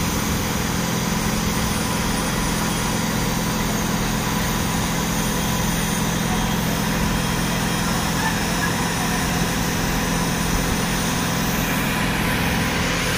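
Diesel engines of mobile hydraulic (hydra) cranes running steadily, a constant low engine hum with no revving or change in pitch.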